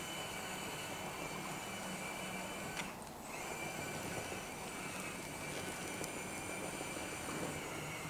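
Electric hydraulic pump and motors of a 1/16 Huina RC hydraulic excavator running with a steady whine as the upper body swings and the boom and arm move. The whine dips briefly about three seconds in.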